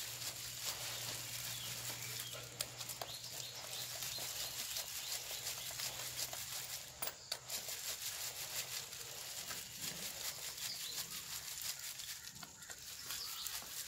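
Gloved hands handling and rubbing a dismantled car AC compressor: cloth-on-metal rustling with many small clicks and taps, over a steady low hum.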